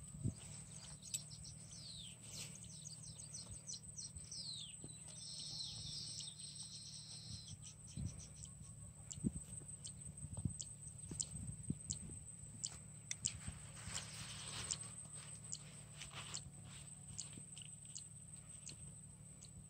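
Birds chirping with quick rising and falling calls, over a faint steady low hum, with scattered short sharp clicks through the second half.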